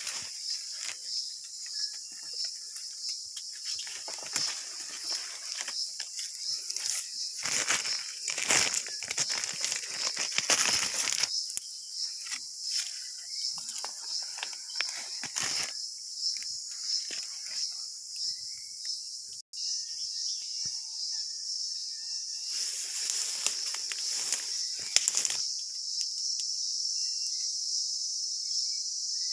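A steady high-pitched insect chorus, with leaves and stems rustling and crackling in irregular bursts as the vine and foliage are handled, mostly in the first dozen seconds and again briefly later.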